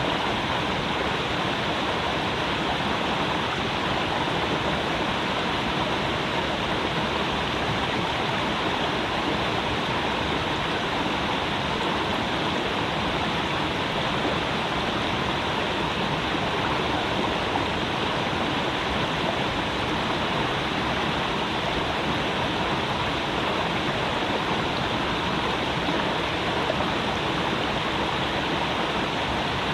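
Creek water rushing and burbling over rocks in a steady, unbroken flow.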